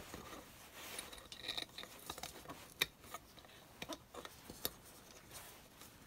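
Faint rustling of insulated wires being handled, with a few small sharp clicks as spade connectors are worked onto the terminals of an electric kettle's thermostat switch.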